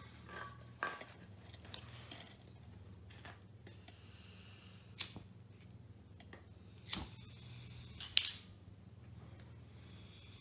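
Hand-held lighter clicked three times at the mouth of a gas-fed portable Bunsen burner, about halfway through and twice more over the next three seconds, the last click the loudest; by then the burner has lit.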